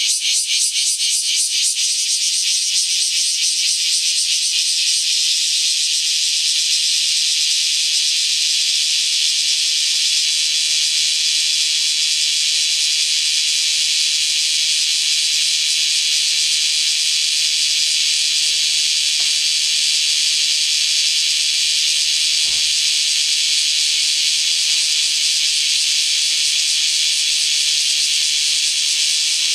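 Bear cicadas (kumazemi, Cryptotympana facialis) singing a loud, shrill 'shawa-shawa' chorus. It pulses in quick beats for the first few seconds, then merges into a steady din, the chorus striking up as soon as rain has stopped.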